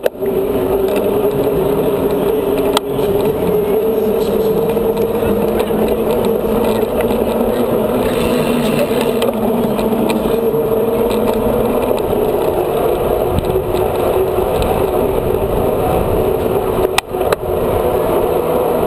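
A mountain bike rolling over paving stones and asphalt, picked up by a camera riding along on it: steady, loud tyre and rolling noise with rattling from the bike.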